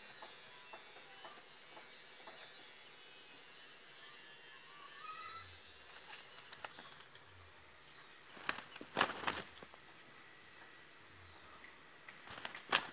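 Faint outdoor background with distant bird calls, broken twice by short bursts of rustling and scuffling: once about two-thirds of the way through and again near the end.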